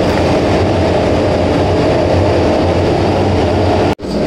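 A pack of MotoGP racing motorcycles running hard on the straight, a dense, steady wall of four-stroke engine noise from many bikes at once. It drops out suddenly for a moment about four seconds in.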